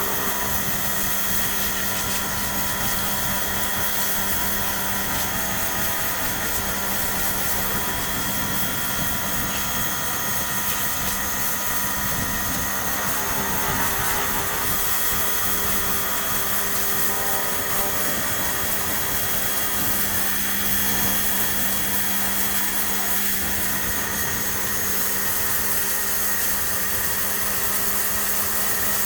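Makita 240 V electric pressure washer running continuously, its motor and pump giving a steady whine while the high-pressure water jet hisses without a break.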